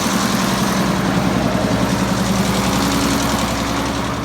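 Tractor engine running steadily while its hydraulics raise the round baler's tailgate; the level eases off slightly near the end.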